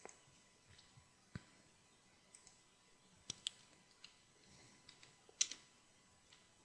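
Sparse clicks from a computer mouse and keyboard while a value is entered in a software field: a handful of short single clicks spread out with near silence between them. Two come in quick succession about three seconds in, and the loudest comes about five and a half seconds in.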